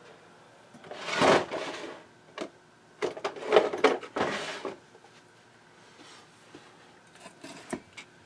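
Handling noise: two long rough scraping, rustling sounds, about a second in and again about three seconds in, then a few light knocks near the end.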